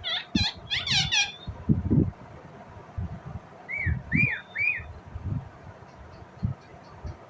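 Indian ringneck parakeet calling: a quick run of high, falling chirps in the first second or so, then three shorter arched squawks about four seconds in. Scattered low thuds sound throughout.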